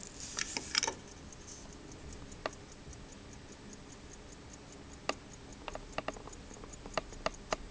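Antique American Waltham pocket watch ticking steadily, about five quick, light ticks a second. A cluster of louder clinks and clicks comes about a second in, and a few more sharp clicks come later.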